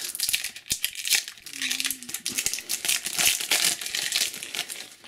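A foil trading-card booster pack being crinkled and torn open by hand, a dense run of quick, sharp crinkles.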